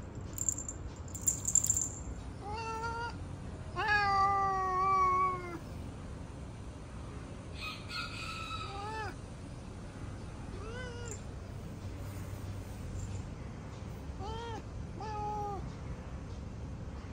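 Cat meowing: about six calls, most short, with one long drawn-out meow about four seconds in that is the loudest. A few sharp clicks come in the first two seconds.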